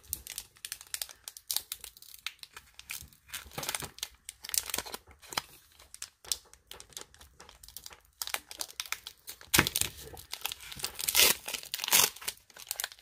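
Foil wrapper of a Pokémon Evolutions booster pack crinkling in the hands, then being torn open, the tearing loudest in the last few seconds.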